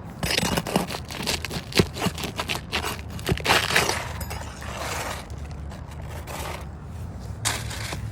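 Asphalt roof shingle being pried up with a snake bar: irregular scraping, crackling and crunching as the tab's sealant strip tears loose, with a few sharp clicks.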